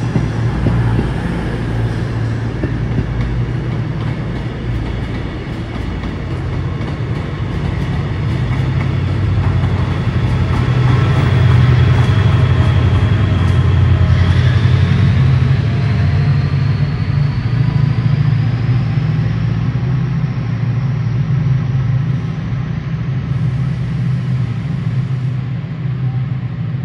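Diesel trains running slowly through the station. A Class 68 diesel-electric locomotive hauling a Mk5 set pulls away, with a deep engine drone that is loudest about halfway through. From about halfway, a thin whine rises steadily in pitch as the train gathers speed.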